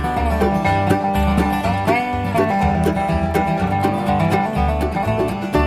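Background music: an upbeat country-style instrumental with plucked strings over a pulsing bass.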